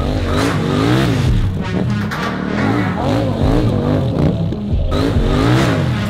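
KTM 790 Duke's 799 cc parallel-twin engine revving up and down repeatedly, rising and falling about once a second as the rider works the throttle through stunt manoeuvres.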